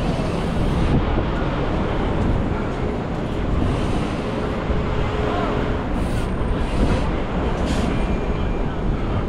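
Street traffic noise heard while riding a bicycle between cars, vans and a bus, with a steady rush of wind on the microphone. A faint steady hum rises out of it for a few seconds in the middle.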